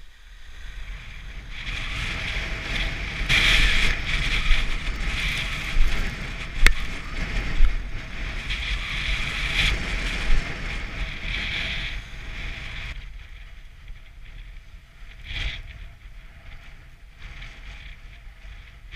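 Wind buffeting an action camera's microphone while snowboarding, with the board's edge scraping over groomed snow, and a few sharp knocks in the middle. The rush is louder for the first two-thirds, then drops as the ride slows.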